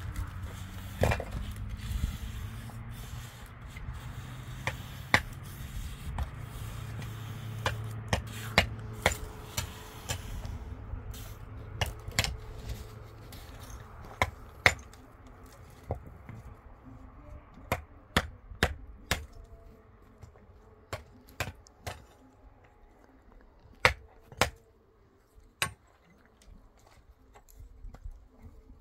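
Irregular sharp knocks and taps of hand tools at work on the roof, some louder strikes among lighter taps. A low rumble runs under them and fades out about ten seconds in.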